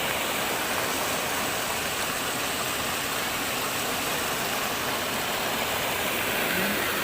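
Floodwater rushing over a spillway: a steady, unbroken roar of water.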